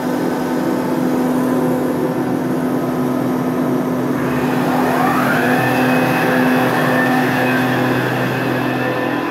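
A motor running steadily with a low hum; about halfway through, a higher whine rises in pitch and then holds.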